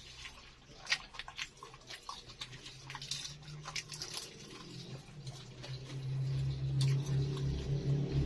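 Close-up chewing and crunching of a crispy fried egg-and-vermicelli martabak, with irregular crackles and mouth clicks. A low hum underneath grows louder near the end.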